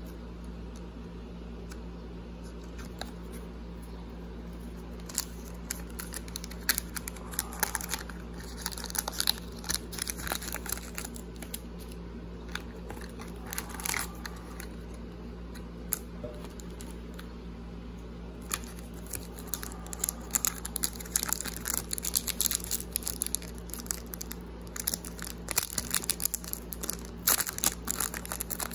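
Foil trading-card pack wrappers crinkling and tearing as packs are handled and opened. The crackling comes in dense spells with a brief lull in the middle, over a steady low hum.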